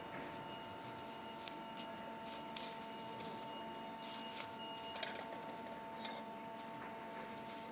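Bubble wrap rustling and crinkling as ceramic plates are wrapped by hand, with a few light clicks of plates being handled. A steady machine hum runs underneath.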